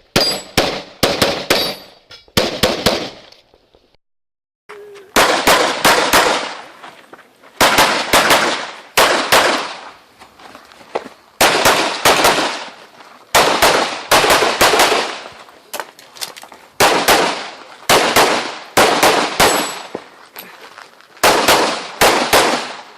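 Pistol fired in rapid strings, mostly as quick pairs of shots, with short pauses between groups as the shooter moves between targets. A dead-silent break of about a second and a half comes after the first few shots.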